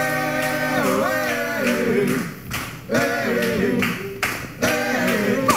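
A male vocal group singing a cappella in close harmony: a chord held for about a second and a half, then shorter phrases, with a few sharp percussive hits in between.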